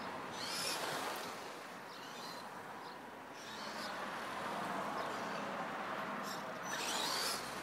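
Brushless electric RC stadium truck (HPI E-Firestorm 10T Flux) driving on asphalt: bursts of high-pitched motor whine and tyre hiss that come and go several times as it is throttled, the strongest near the end.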